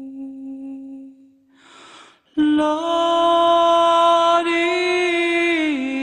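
Slow vocal music of long held notes: one sustained note fades out about a second in, a short breath follows, then a louder voice enters about two and a half seconds in, holding a steady note that steps down in pitch near the end.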